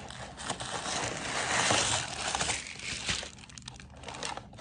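Paper gift box being opened by hand: the paper and card rustle and crinkle, loudest about a second or two in, then fading to scattered small rustles.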